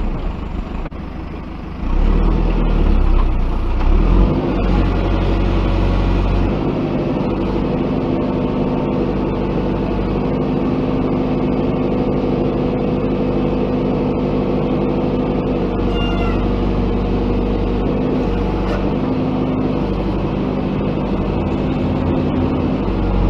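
JCB 3DX backhoe loader's diesel engine running under working load. The level jumps up about two seconds in, and the engine note shifts in pitch a few times as the machine digs and loads.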